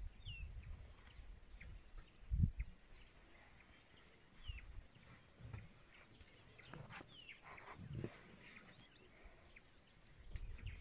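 Several birds chirping, with short high whistled calls that sweep down in pitch, over intermittent low rumbling noise. The loudest is a low thump about two and a half seconds in.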